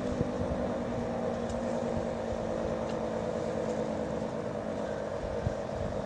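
Federal Signal 2T22A dual-tone tornado siren sounding its steady alert tone, held at an even pitch, with wind rumbling on the microphone.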